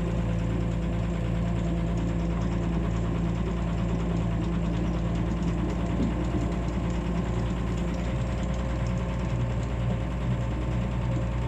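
Excavator engine running steadily with an even, unchanging hum.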